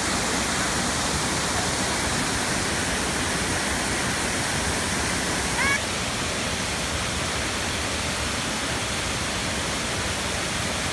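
Waterfall pouring: a steady, dense rush of falling water. About halfway through, a brief high call cuts through it.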